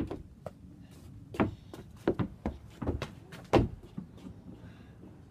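A tennis ball being kept up off the feet. A run of about eight short, dull taps comes at uneven spacing, the loudest about three and a half seconds in.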